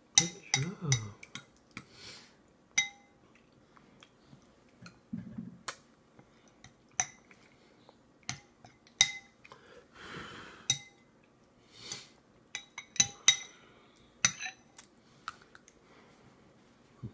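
A child's plastic spoon tapping and scraping in a feeding bowl with a metal inner rim, making irregular clinks that each ring briefly, about twenty in all.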